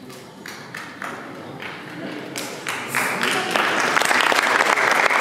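Audience applauding, swelling to loud, dense clapping about halfway through.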